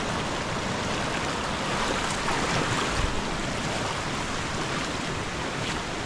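Steady rush of river water spilling over low limestone cascades. A brief low thump about halfway through.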